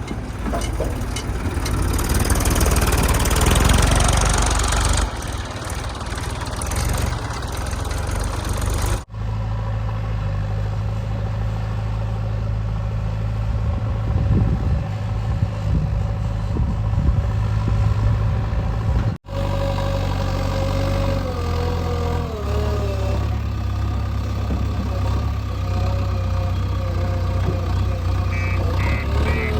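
Heavy diesel engine of a JCB 3DX backhoe loader running steadily with a low, even drone. The first few seconds also carry a loud rushing noise. The sound breaks briefly twice where the clips are cut.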